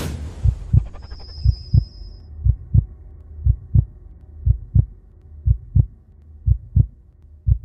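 Heartbeat sound effect: paired low lub-dub thumps about once a second over a low hum. A crash-like burst fades out at the start, and a thin high tone sounds briefly in the first two seconds.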